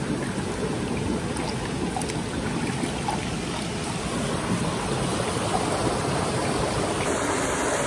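Shallow, clear mountain stream running over rocks close by, a steady rush of water.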